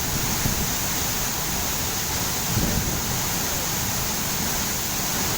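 Waterfall's falling water rushing steadily, an even noise with a low rumble underneath.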